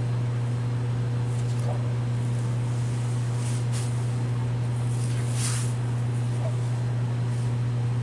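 Steady low hum, with a couple of faint brief rustles around three and a half and five and a half seconds in.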